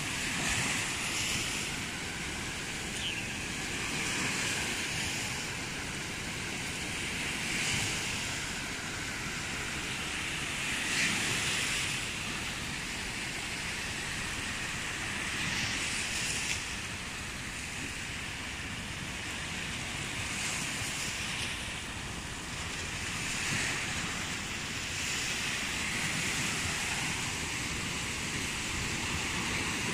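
Small waves breaking and washing up a sandy beach, the hiss of the surf swelling every few seconds.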